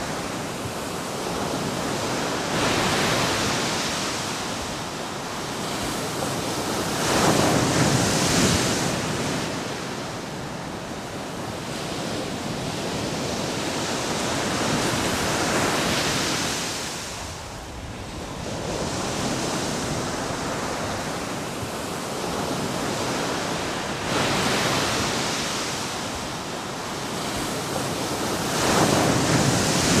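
Ocean surf breaking and washing ashore: a continuous rushing hiss that swells louder about five times as waves come in.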